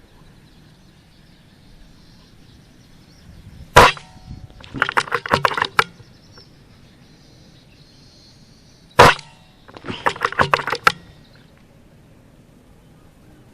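Two shots from an air rifle firing slugs, sharp cracks about five seconds apart. Each shot is followed about a second later by a quick run of sharp clicks.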